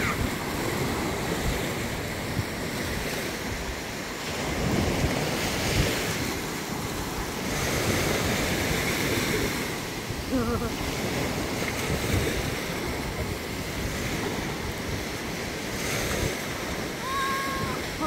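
Surf washing up on a sandy beach, with wind gusting on the microphone; the wash of the waves rises and falls every few seconds.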